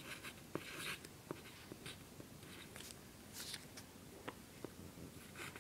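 Faint scratching strokes of handwriting on graph paper, in short bursts, with a few light ticks.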